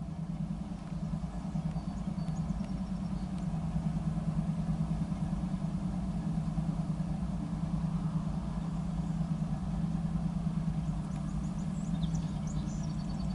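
An engine idling: a steady low hum with a fast flutter. Faint high chirps come through a few seconds in and again near the end.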